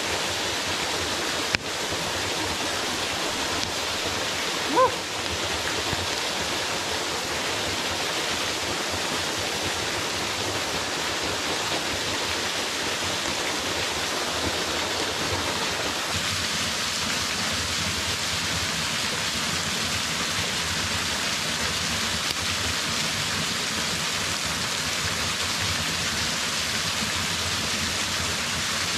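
Small waterfall and stream rushing steadily. A sharp click comes about a second and a half in and a brief pitched sound near five seconds; from about sixteen seconds on the rush sounds thinner.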